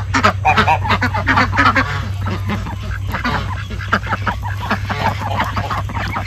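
A flock of domestic ducks, Pekins and Pekin–mallard mixes, quacking in many short overlapping calls, with goose honks mixed in. The calling is thickest in the first two seconds, then goes on more sparsely.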